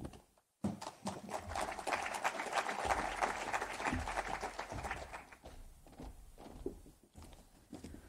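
Audience applauding: a dense patter of many hands starting about half a second in and dying away after about five seconds, leaving a few scattered faint sounds.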